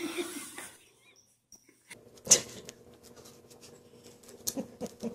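A single sharp knock, then a low steady hum with faint small sounds from two kittens feeding from a bottle, growing busier near the end.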